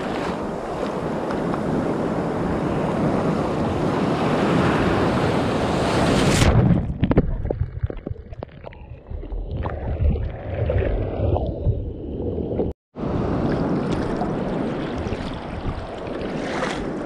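Waves and churning white water around a sea kayak, with wind buffeting the microphone. About six seconds in the sound turns muffled for several seconds, cuts out briefly, then the water and wind noise resume.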